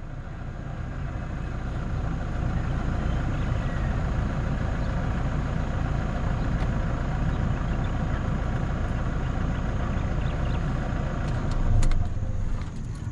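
Toyota pickup truck's engine idling steadily while parked; near the end there is a louder clunk with sharp clicks as the driver's door is opened.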